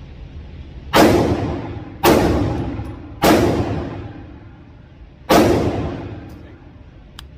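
Four pistol shots: three about a second apart, then a fourth about two seconds later, each followed by a long echo off the walls of an indoor firing range.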